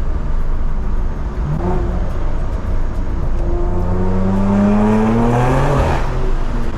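BMW G82 M4's S58 twin-turbo inline-six running through a full Valvetronic stainless exhaust with the valves open, at low RPM without drone. The engine note rises steadily under acceleration from about three seconds in, then falls away near the end.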